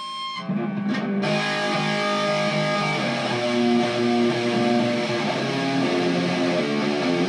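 Electric guitar played through an Orange TH30 all-tube head and a 2x12 speaker cabinet: a held note, then loud sustained chords from about half a second in.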